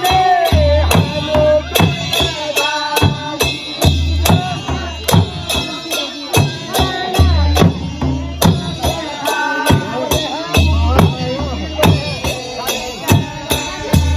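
Folk Holi song sung to a drum and hand percussion keeping a steady beat, with deep drum strokes every few seconds.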